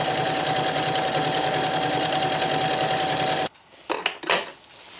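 Electric sewing machine running steadily, stitching a side seam through thin ripstop nylon: rapid needle clatter over a steady motor whine. It stops suddenly about three and a half seconds in, followed by a couple of short clicks.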